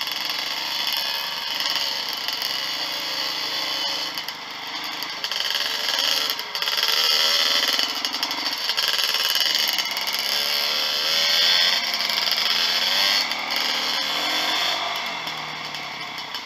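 Dirt bike engine running on a trail ride, its revs rising and falling over and over, under a constant loud hiss.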